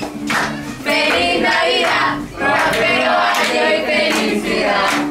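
A group of voices singing a song together over musical accompaniment.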